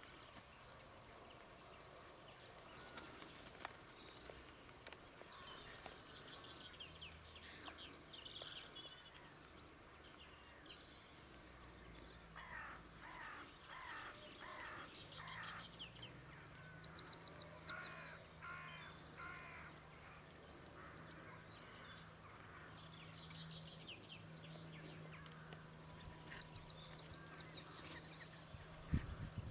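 Wild birds singing and calling, with high chirps and trills throughout and two runs of lower, evenly repeated calls in the middle. A low steady drone comes in about halfway, and a single knock sounds near the end.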